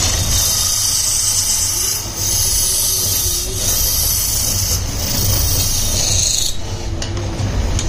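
Lathe running with a steady motor hum while a hand-held tool cuts a spinning brass diya part, making a hissing scrape. The hiss drops away about six and a half seconds in, leaving the hum.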